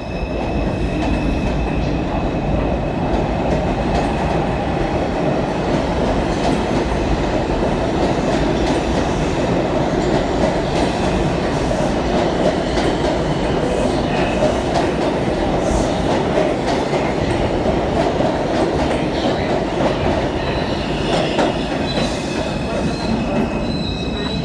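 An R142 subway train running along the station platform: a steady, loud rumble of wheels on rail with clickety-clack, and a faint steady whine above it near the start and again near the end.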